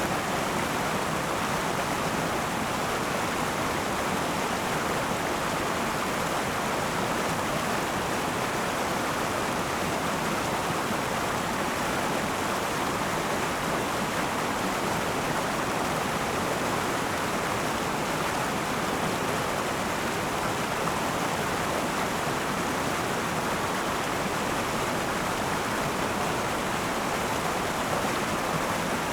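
Akan River flowing: a steady rush of river water over stones, even and unbroken throughout.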